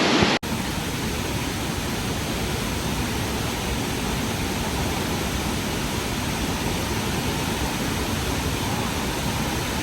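Josephine Falls in flood after heavy rain: a steady, loud rush of swollen, fast-flowing water. A brief dropout comes about half a second in, then the rush continues unchanged.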